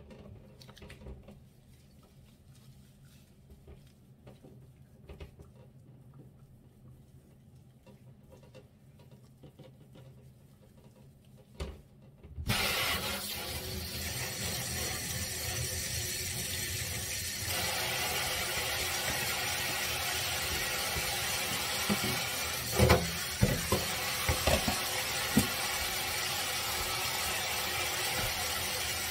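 Water from a sink faucet running and splashing as a small wet dog is washed and rinsed in the sink. It comes on suddenly a little under halfway through and runs on steadily, with a few knocks near the end. Before it there is only faint clicking.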